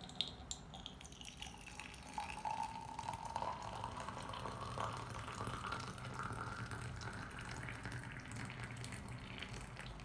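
Water running into a container, its pitch slowly rising as the container fills, after a few light clicks at the start.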